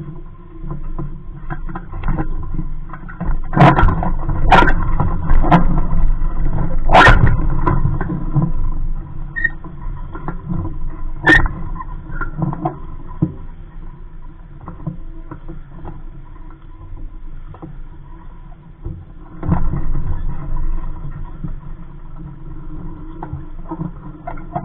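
Knocks, clunks and clicks of people moving about a small fibreglass sailboat and handling its fittings and lines, over a steady low rumble. The sharpest knocks come a little after 3 s, around 4 and a half s, at about 7 s and at about 11 s.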